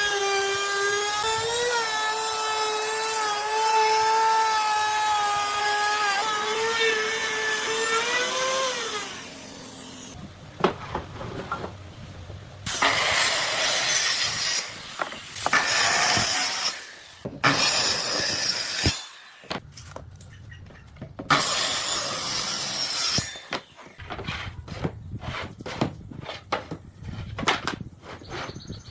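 An electric power tool working wood: a steady motor whine for about nine seconds, its pitch dipping briefly a few times as it takes load, then four short, noisy passes of a tool through wood, followed by scattered knocks and clicks of wood being handled.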